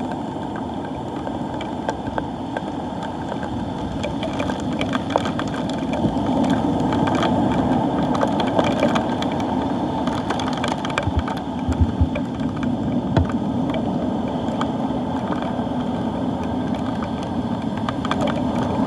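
Steady rush of wind and surf, muffled through the hard plastic dive case around the camera, with raindrops ticking on the case throughout and a few low knocks about halfway through.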